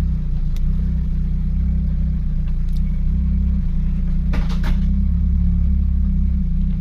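Turbocharged 4.0-litre Ford Intech SOHC straight-six running steadily at low revs, with a few brief clicks about half a second, two and a half seconds and four and a half seconds in.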